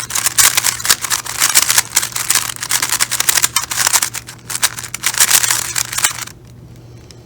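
Magnetic GAN 3x3 speedcube turned fast: rapid, dense clicking of its layers for about six seconds, then it stops.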